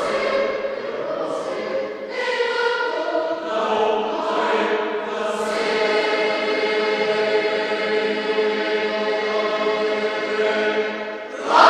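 Boys' choir singing in a reverberant church, settling into a long held chord in the second half, with a louder swell right at the end.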